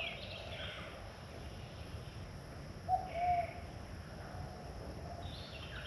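Quiet outdoor ambience with one short bird call about three seconds in, a single brief tone that rises and falls.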